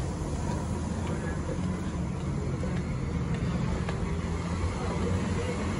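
Steady road traffic noise: vehicle engines and tyres on the street, a continuous low rumble.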